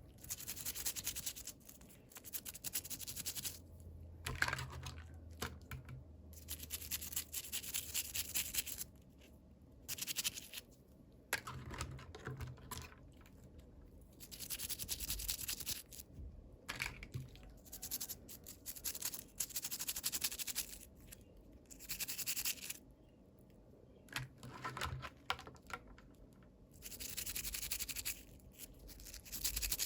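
Crinkly plastic packaging being rustled and torn open by hand, in stretches of a second or more with short pauses between, and the odd sharp click.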